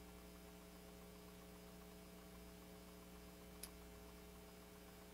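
Near silence: a faint steady electrical hum, with one faint click about two thirds of the way through.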